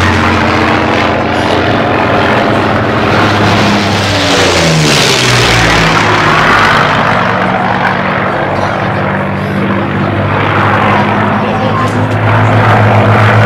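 Yak-3 fighter's piston engine and propeller running hard in a flying display, with the pitch dropping as the plane passes about four to five seconds in, then a steady drone that grows louder near the end.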